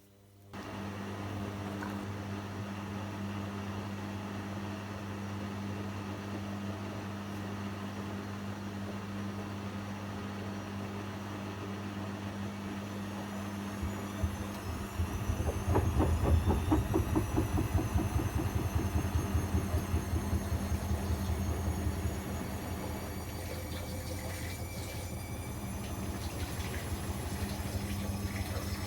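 Bosch Avantixx 7 Sportline WAQ2849S washing machine starting a new phase: a steady low hum comes on, then about halfway through the drum starts turning with a fast rhythmic thumping while the motor's whine rises steadily in pitch as it speeds up toward the spin.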